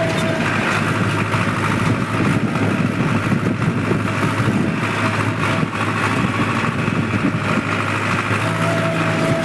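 Powertrac tractor's diesel engine running steadily under way on the road, with a constant engine note and rattling noise. A faint high whine comes and goes near the start and the end.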